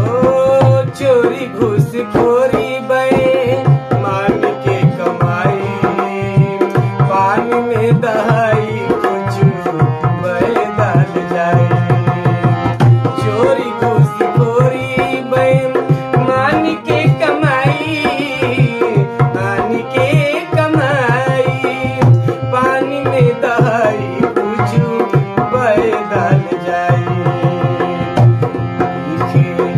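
Dholak barrel drum and harmonium playing a folk song, the drum keeping a steady, busy rhythm under the harmonium's melody.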